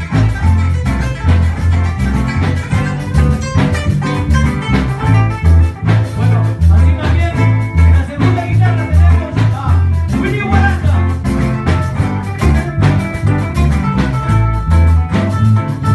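A live band playing a song: nylon-string classical guitar over a steady beat of electric bass and drum kit, with a man singing for a few seconds in the middle.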